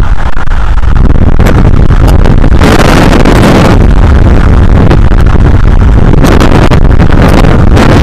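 Hurricane wind buffeting an outdoor nest-cam microphone: loud, continuous wind noise with no let-up, heavy at the low end and at the point of overloading the microphone, with a few brief crackles.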